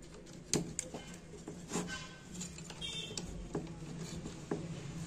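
Scattered small clicks and knocks from hands handling wires and a plastic connector on a CRT TV chassis board, about five in all, over a faint steady low hum.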